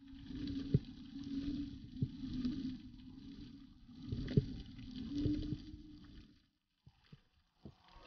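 Boat engine hum, swelling and dipping, with scattered sharp clicks; it fades out about six and a half seconds in.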